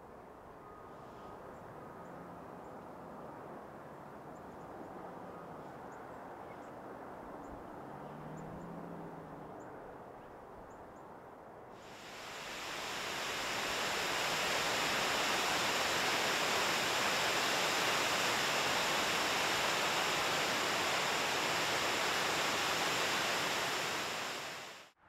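Quiet outdoor ambience, then about halfway through a loud, steady rush of river water fades in and holds, like water pouring over falls, before cutting off abruptly at the end.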